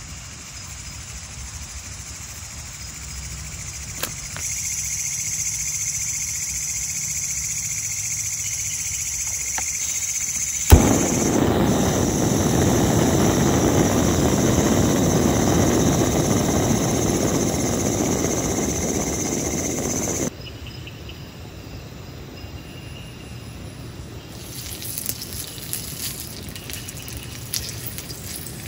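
Portable canister gas stove: a hiss, a sharp ignition click about ten seconds in, then the burner running with a steady roar that cuts off abruptly. Crickets chirp faintly at the start, and near the end meat starts sizzling on the hot griddle plate.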